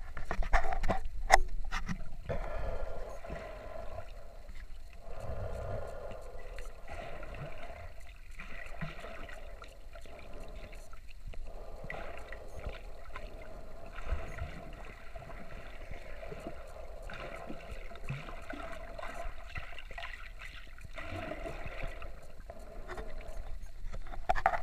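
Muffled underwater sound picked up by a camera in a waterproof housing: a few sharp knocks in the first two seconds, then a low rumble with a steady hum that comes and goes in stretches.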